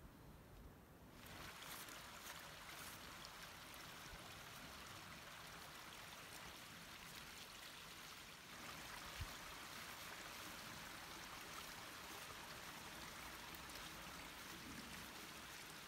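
Faint, steady hiss of a small mountain stream running, with one soft knock about nine seconds in.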